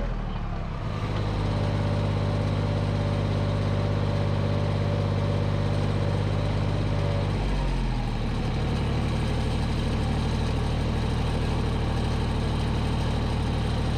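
Tractor engine running steadily, its note shifting to a new engine speed about halfway through.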